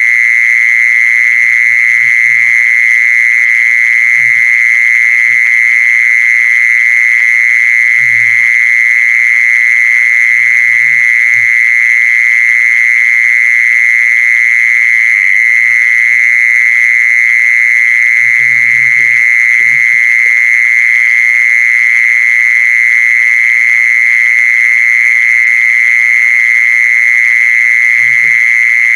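Calling sound used as a lure for female kmol: a loud, unbroken high-pitched trill with short, low croaking calls breaking in every few seconds, in a small cluster around the middle and again near the end.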